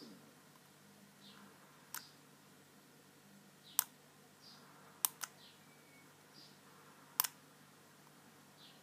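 Sharp, irregular clicks of a lock pick working the serrated pin stacks of an American Lock 1105 padlock, about six clicks with two quick pairs in the middle.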